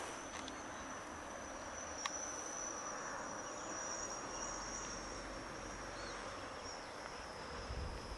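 A continuous high-pitched insect trill, like a cricket's, holding one steady high note over a background hiss, with a few faint clicks.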